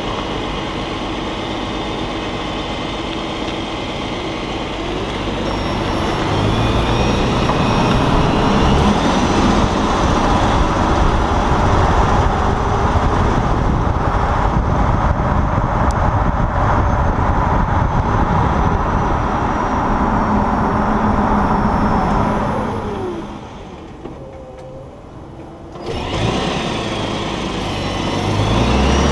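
Tyre roar and road noise with the engine running, heard from close under a moving Lexus GS sedan beside its front wheel. It grows louder about six seconds in, dies away about three-quarters of the way through, and comes back abruptly near the end.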